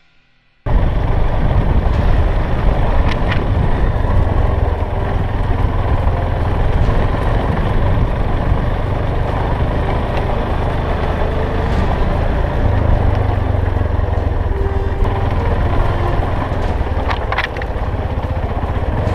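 Yamaha Ténéré 250 motorcycle riding along, its single-cylinder engine running steadily under a loud low rumble; the sound cuts in suddenly under a second in.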